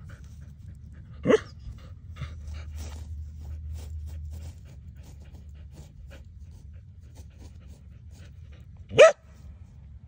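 A dog gives two short barks, one about a second in and a louder one near the end, with faint panting in between.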